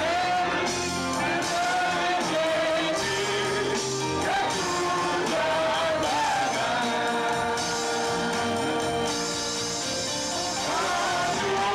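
A congregation singing a gospel song together, with a church band accompanying: a steady bass line and cymbals alongside the voices.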